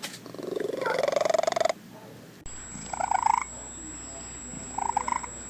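Domestic cat vocalising: a long, rough, pulsing call that rises in pitch for nearly two seconds. Then, from a different cat clip, a short call and, near the end, another brief one.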